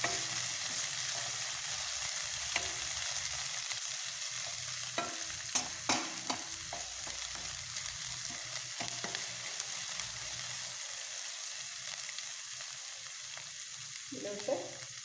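Chopped okra sizzling in hot coconut oil in a stainless-steel pan, stirred with a spatula that clicks and scrapes against the pan a few times, most around five to six and a half seconds in. The okra is being sautéed to cook off its sliminess.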